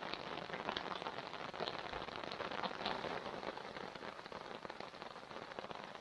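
Steady rain falling on a fabric tarp stretched over the back of a Jeep, with scattered individual drops ticking.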